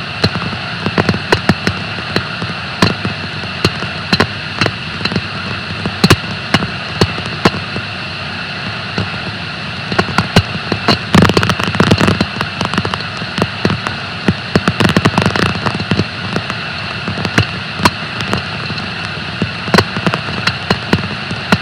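Bearing on a paper-mill bleach decker, picked up by an ultrasonic bearing monitor: a steady hiss broken by irregular sharp clicks and knocks, bunching together about ten to twelve seconds in. The impacts are the sign of a defective bearing.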